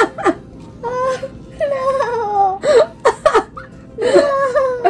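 Wordless voices: drawn-out vocal sounds that slide up and down in pitch, mixed with laughter, with a few short knocks between them.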